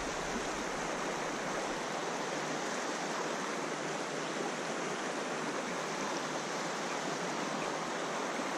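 Running water of the New River flowing past the campsite, a steady even rush with no breaks.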